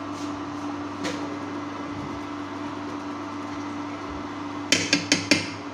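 Steady hum of an induction cooktop's fan and coil running under a pan of simmering dal, with a quick run of four or five sharp clicks near the end.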